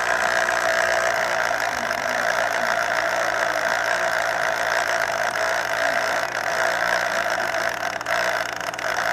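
Electric citrus juicer running steadily, its motor turning the reamer while an orange half is pressed down onto it.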